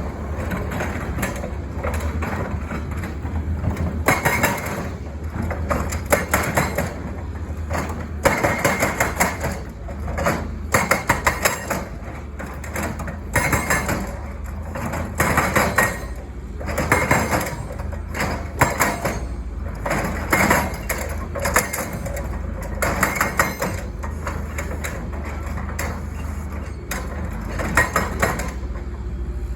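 Hydraulic breaker hammer on a Caterpillar 320 excavator pounding in repeated bursts of rapid blows, each a second or two long, over the steady low drone of the excavator's diesel engine.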